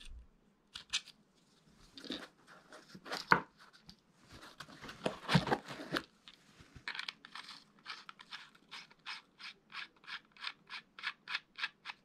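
A Prologic bite alarm and its aluminium quick-release connector being handled: scattered scrapes and knocks of plastic and metal, then, from about seven seconds in, a steady run of small clicks, about three a second, as a connector is twisted onto an alarm.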